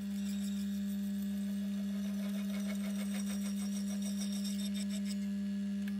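Mill-drill running a slitting saw: a steady motor hum with a constant tone and faint regular ticking.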